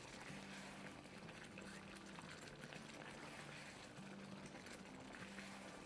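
Faint simmering of chicken in softened tomato masala in a wok, as the tomatoes are cooked down.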